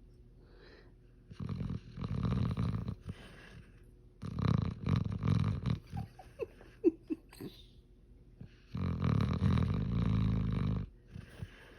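Loud snoring: three long rasping snores of about two seconds each, a few seconds apart, with a few short squeaky whistles after the second one.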